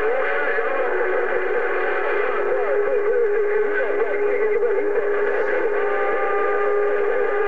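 CB radio receiver on 27.025 MHz with several distant stations coming in on top of one another: steady whistling heterodyne tones and warbling, garbled signals over static. A steady low whistle comes in about a second in and holds.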